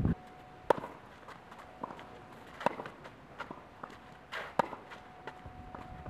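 Tennis rally on a clay court: the ball struck back and forth with rackets, a sharp pop every second or two, the loudest about a second in.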